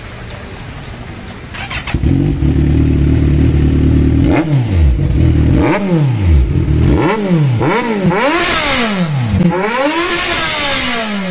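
Kawasaki Ninja 1000's inline-four engine, breathing through a loud aftermarket exhaust that is only temporarily fitted, starts about two seconds in and idles briefly. It is then revved in a series of throttle blips, each rising and falling, the later ones held longer and louder.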